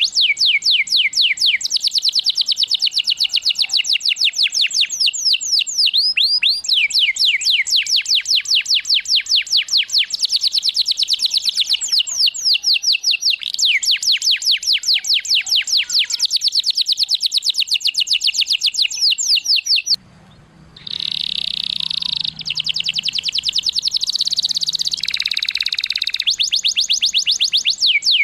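Domestic canary singing: long rolling trills of rapid, repeated downward-sweeping notes. About twenty seconds in the song breaks off briefly, then resumes with a buzzier passage before the sweeping trills return.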